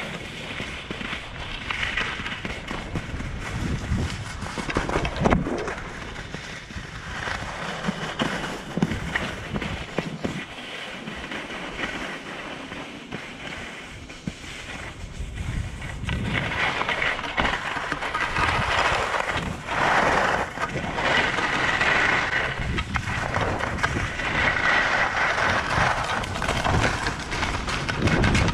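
Skis sliding and scraping over packed snow on a downhill run, with wind buffeting the microphone. The scraping grows louder in surges in the second half.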